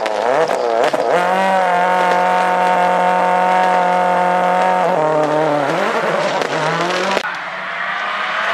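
Rally car engine revving hard: the pitch wavers through quick changes, then holds steady at high revs for about four seconds, dips and climbs again, and cuts off suddenly about seven seconds in.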